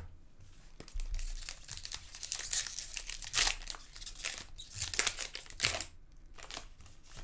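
Foil wrapper of an SP Authentic hockey card pack crinkling as it is torn open and handled. It starts about a second in, with sharper, louder crackles through the middle.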